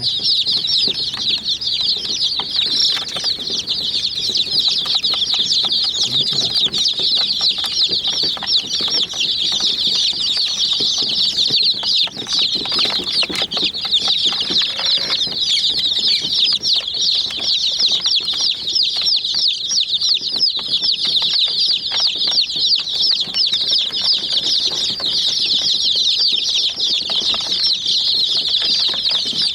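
A brood of young chicks chirping nonstop, many rapid high peeps overlapping, each one falling quickly in pitch. Faint scattered knocks sound underneath.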